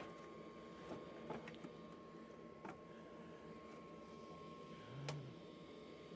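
A few faint, sharp clicks and one soft low thump about five seconds in, over a faint steady high, thin tone.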